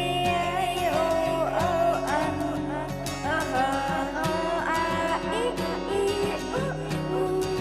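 Background music: a cheerful instrumental tune with plucked guitar-like backing and a high, gliding melody line.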